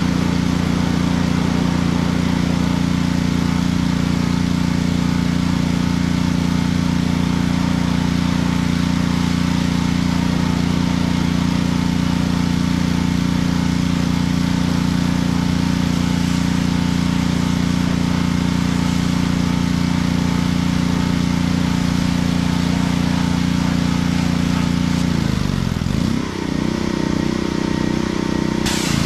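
An engine running steadily. Near the end its pitch dips and shifts for a few seconds, then settles back.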